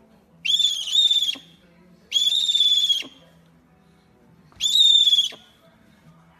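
An owl calling three times, each call a high, harsh, drawn-out note just under a second long, about every two seconds.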